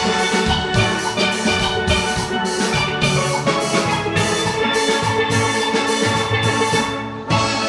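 A steel orchestra playing: many steelpans ringing out chords and melody over a steady percussion beat. The music thins briefly just after seven seconds, then comes back with a loud accented stroke.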